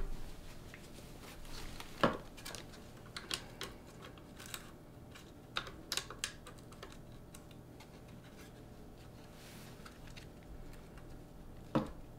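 Light, scattered clicks and taps of small parts and tools being handled during maintenance work on a Caliburn Nerf blaster, some in quick clusters with quiet gaps between.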